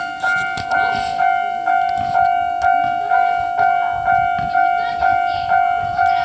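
Japanese railway level-crossing warning bell ringing, a repeated two-tone ding at a steady pace of about two strikes a second, each one fading before the next. It is the crossing's alarm that a train is approaching.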